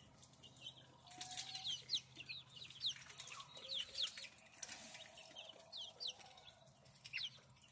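Goslings peeping: a run of short, high peeps, each falling in pitch, a few every second.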